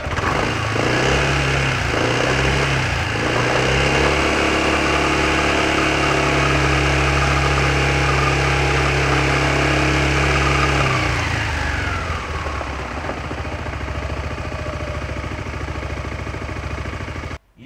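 2021 Yamaha X-MAX 300 scooter's single-cylinder four-stroke engine revved in a few short blips, then held at high revs for about seven seconds before dropping back to a steady idle. The sound cuts off suddenly near the end.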